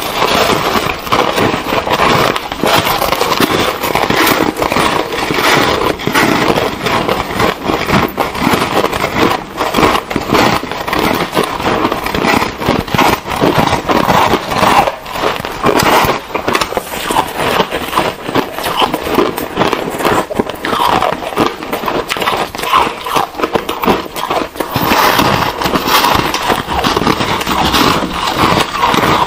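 Dense, continuous crunching and crackling of frozen ice being bitten and chewed close to the microphone: shaved ice and soft, airy foam ice, two eaters' chewing layered together.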